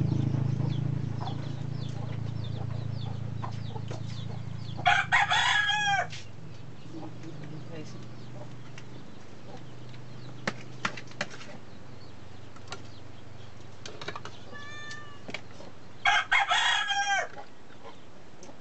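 A rooster crowing twice, each crow a little over a second long and about eleven seconds apart, with a few light clicks in between.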